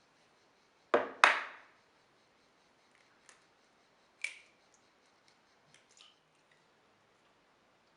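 Two sharp knocks close together about a second in, then a fainter knock a little past four seconds in and a few light clicks.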